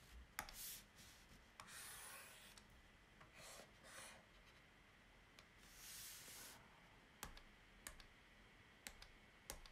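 Faint, scattered clicks, about six, with three brief scratchy rubbing sounds between them: computer pointer clicks and handling while a drawing is selected on screen.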